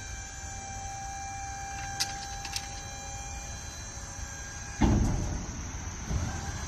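Ultimate Dump trailer's electric hydraulic pump whining steadily as the rear ramp gate is raised, with a couple of light clicks, then a loud steel clunk just before five seconds in that fades out slowly.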